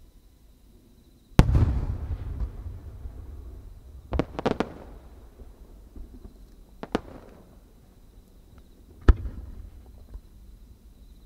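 Japanese aerial firework shells booming: a loud boom about a second in that rolls on for a couple of seconds, a quick cluster of sharp cracks around four seconds, a single crack near seven seconds, and another loud boom about nine seconds in.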